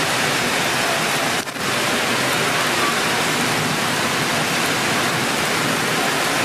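Heavy rain falling steadily in a dense, even hiss, briefly dipping about a second and a half in.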